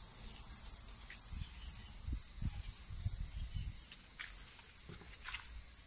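A high-pitched insect shrill, steady at first and then breaking into rapid even pulses, about four or five a second, from about two seconds in. Underneath, soft rustles and light thumps of kittens scuffling in dry leaves.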